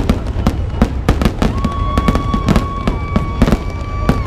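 Fireworks display: a dense, rapid barrage of bangs and crackles, several a second. A steady high whistle joins about a third of the way in and holds until just before the end.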